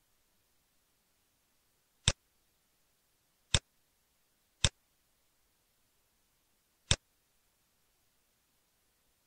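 Four sharp mouse clicks, spaced unevenly over about five seconds, against near silence.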